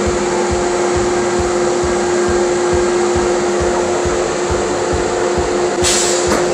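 CNC router spindle running with a steady whine, over the rush of a dust collector. Near the end a short, sharper hiss breaks in, as the bit cuts into the wood.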